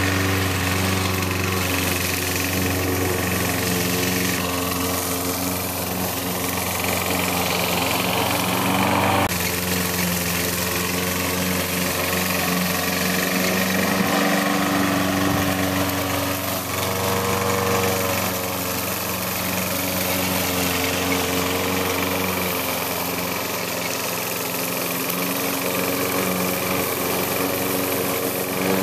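Small single-cylinder engine of a walk-behind gasoline rotary lawn mower, running steadily as the mower is pushed through grass.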